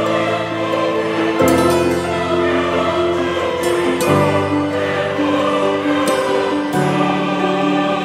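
Background music of slow, sustained chords that change three times.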